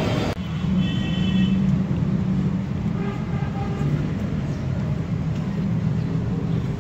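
Steady low rumble of street traffic and engines, with faint high tones about a second in and again around three seconds in. At the very start, a fraction of a second of hot oil sizzling ends in an abrupt cut.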